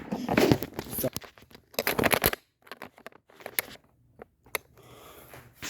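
Bursts of rustling and scraping handling noise with scattered clicks, busiest in the first second and again about two seconds in, then sparse clicks.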